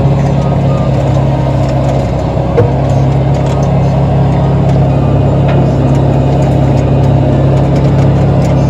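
John Deere 6420 tractor's four-cylinder diesel engine running steadily under plowing load, heard inside the cab, with one short knock about two and a half seconds in.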